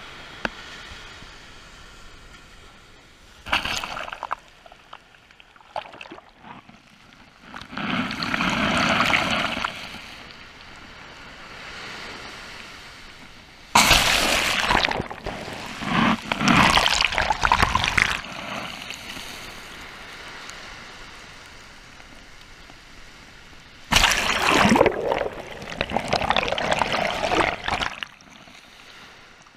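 Shallow surf washing over a camera sitting in the water's edge: four surges of sloshing, gurgling water as waves cover the microphone, the loudest about halfway through, with a quieter rushing between them.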